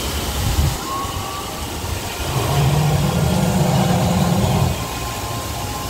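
Animatronic crocodile's low growl, lasting about two seconds and starting about two seconds in as its jaws open, over a steady hiss of mist and falling water.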